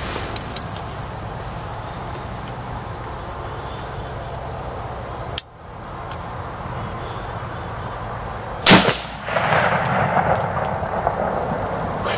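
A single sharp 6.5 mm hunting rifle shot about nine seconds in, the loudest sound by far, fired at a doe that drops to it.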